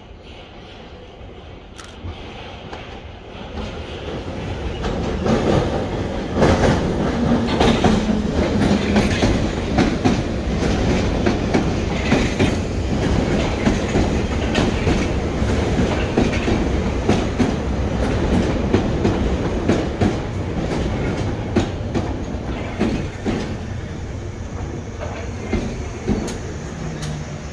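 London Underground Bakerloo line tube train running into the station, its wheels clattering over rail joints and points. It grows louder a few seconds in as it draws near and eases off a little near the end.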